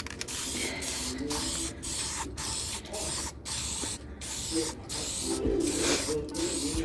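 Aerosol can of plastic adhesion promoter spraying in short, quick spurts, about two a second, as a coat goes onto a plastic hood scoop.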